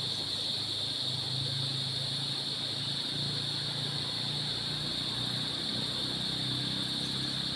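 Steady high-pitched chorus of insects, with a low hum underneath that swells and fades.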